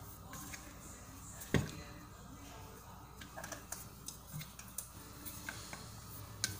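Light knocks and ticks of a wooden rolling pin and hands working dough on a wooden rolling board, with one sharper knock about a second and a half in.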